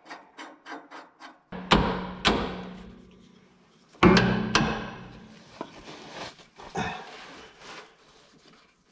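Loud metal clangs with a low, drum-like ringing that dies away, in two pairs of strikes about two and a half seconds apart, then a few lighter knocks.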